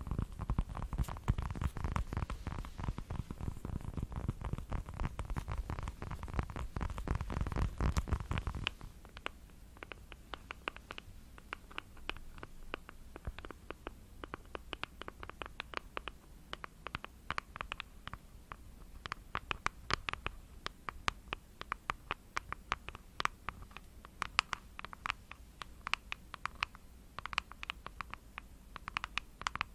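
Long acrylic nails rapidly tapping and scratching on a round ball held against the microphone, dense and with a deep rumble. About nine seconds in, this changes to crisp, separate nail taps on a small printed box.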